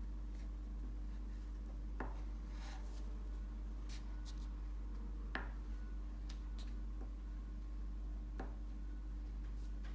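A white wax candle drawn across paper, giving a few faint scratchy strokes and light taps at irregular intervals over a steady low hum.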